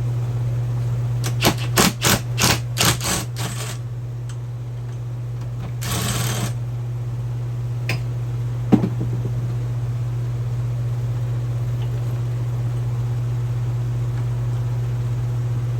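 A hex bit driving out a hex bolt from a floor jack's pump housing. A quick run of about seven short mechanical bursts comes a second or so in, then a brief rasp about six seconds in and a couple of single clicks, over a steady low hum.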